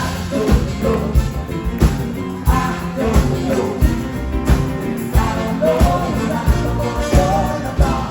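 Live band playing an upbeat rock song with a steady beat and a wavering melody line on top.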